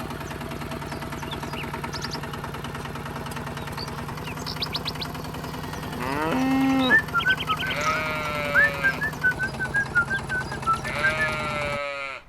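Livestock calling: a long call about six seconds in and another near the end, with short high chirps between them, over a steady background hum.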